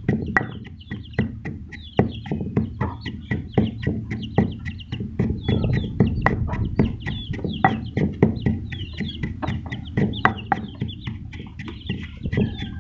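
A wooden pestle pounding and grinding dry feed with black peppercorns in a stone mortar, making sharp knocks about three times a second. Chickens cluck in the background.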